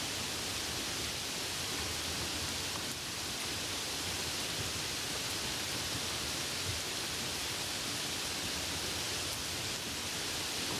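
Steady hiss of rain heard from a car driving in the rain: rain falling on the car and tyres on the wet road, an even rushing noise with no breaks.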